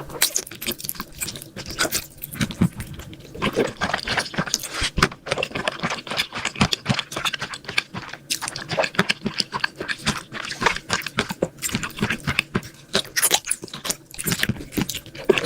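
A person chewing and crunching food close to the microphone, a dense run of crackly crunches with short pauses between bites.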